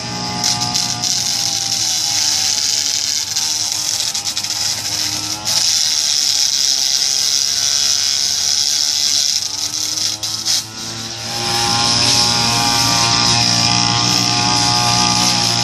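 Backpack brush cutter's engine running at wavering revs, then revving up and holding higher about eleven seconds in. Its cutting head grinds on the pavement with a harsh, high scraping.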